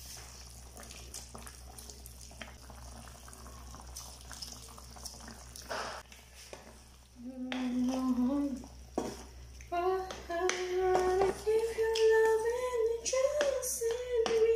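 Wooden spatula stirring chicken pieces in a simmering soy-and-oyster-sauce braise in a pan, soft wet clicks and scrapes. About halfway in a high-pitched voice starts up in drawn-out notes and becomes louder than the stirring.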